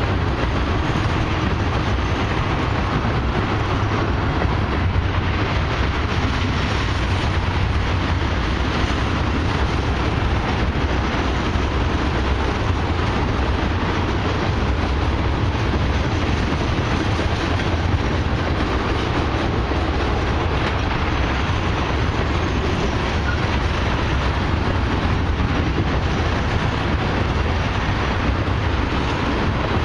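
Loaded ethanol tank cars of a long freight train rolling past a level crossing: a steady rumble and clatter of steel wheels on the rails.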